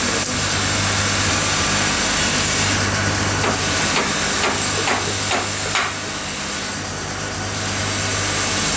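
Factory machinery running with a steady hum and hiss. About three and a half seconds in come six sharp knocks, roughly two a second.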